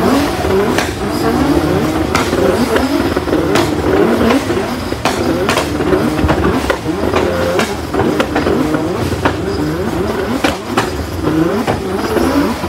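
Nissan GT-Rs revving, with many sharp exhaust pops and bangs: the backfires that shoot flames from their exhausts.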